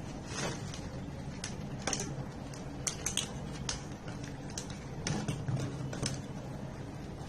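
Scattered light clicks and taps of small parts and wires being handled on a workbench, over a steady low hum.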